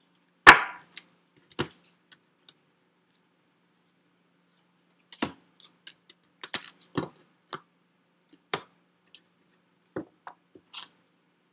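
Tarot card decks being handled and set down on a table: a series of sharp knocks and clicks, the loudest about half a second in, then scattered taps in the second half.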